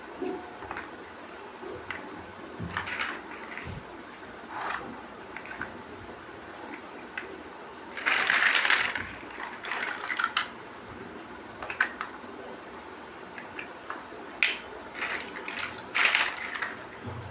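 Plastic Lego bricks clicking and rattling as they are handled and snapped together: scattered short clicks, with a longer rattle about eight seconds in.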